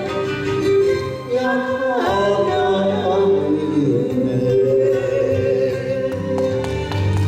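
Enka duet music: the backing track plays, with a sung line held and bent over it.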